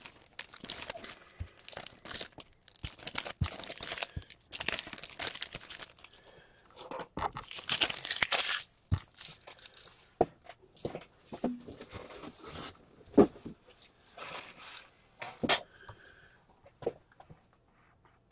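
Foil trading-card pack wrappers crinkling and crunching as they are handled and crumpled, in irregular rustles with a few sharp clicks and knocks. The noise dies down near the end.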